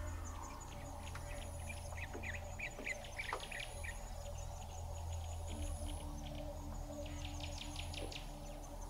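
Birds chirping and trilling in quick runs, with a thin, high insect-like tone that comes and goes about every two seconds over a low steady hum.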